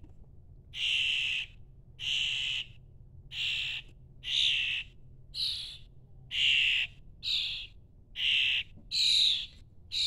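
Two hand-reared fledgling songbirds calling over and over, about one harsh, raspy call a second, each about half a second long: the repeated begging calls of young birds waiting to be fed.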